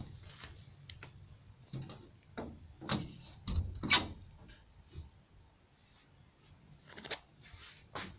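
Rustling and scraping of a woven plastic sack as a cat shifts its weight and grooms on it, with a few sharper knocks about 3 and 4 seconds in and again near 7 seconds.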